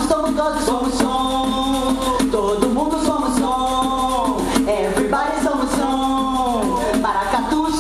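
Live Brazilian folk music: a sung melody over a held note, with light, steady hand-percussion strokes.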